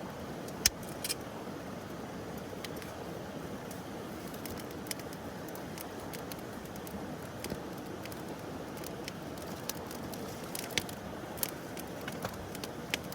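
Wood campfire crackling: irregular sharp pops and snaps over a steady low rush, the loudest pop just under a second in.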